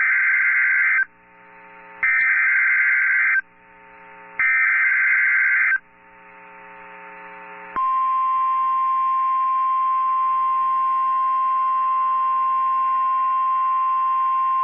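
NOAA Weather Radio Emergency Alert System activation: three bursts of SAME digital header data, each about a second long with a short gap between. About eight seconds in, the steady 1050 Hz warning alarm tone starts. Together they signal a Special Marine Warning.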